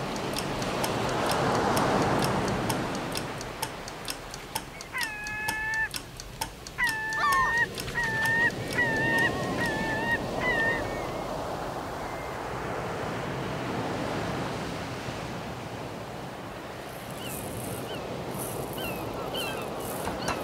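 Layered natural soundscape: a steady rushing like wind or surf that swells and fades, with a fast regular ticking for the first several seconds. A run of short honking calls comes from about five to eleven seconds in, and small high chirps come near the end.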